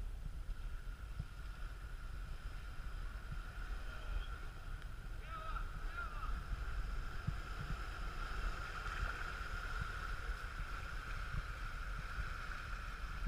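A four-wheel-drive vehicle's engine running steadily as it wades through deep floodwater, with water surging and splashing around it and wind buffeting the microphone.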